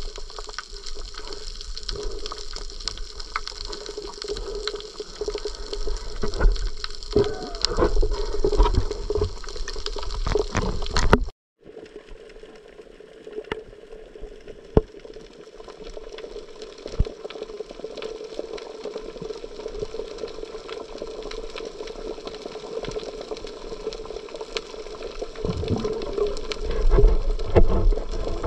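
Steady sound of moving water with scattered clicks and knocks. It cuts out abruptly for a moment about eleven seconds in, then carries on.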